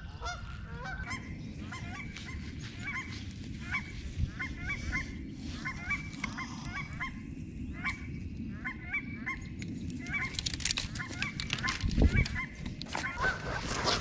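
Geese honking over and over, many short calls overlapping, above a steady low rumble. Knocks and rustles from the camera being handled come in for a few seconds near the end.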